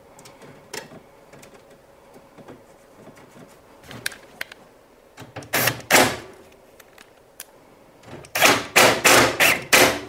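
Hands working on the parts of an opened condenser tumble dryer: a few scattered light clicks, a couple of sharp knocks about halfway through, then a quick run of about six loud clicks and knocks near the end.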